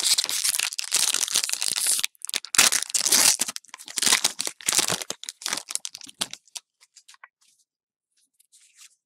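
Foil wrapper of a Pokémon Cosmic Eclipse booster pack being torn open and crinkled in the hands, in loud crackling rustles that come in three bouts and die away after about six seconds.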